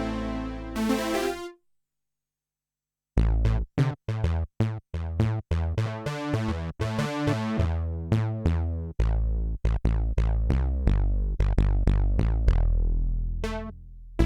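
Kurzweil K2000 synthesizer factory programs played dry on its keyboard. A held sound stops about a second and a half in, and after a short silence a new percussive patch starts, played as a quick run of notes that strike sharply and die away over a deep bass. Another patch begins at the very end.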